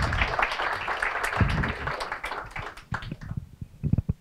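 Audience applause, a dense patter of many hands clapping that dies away about two and a half seconds in, followed by a few low thumps and clicks near the end.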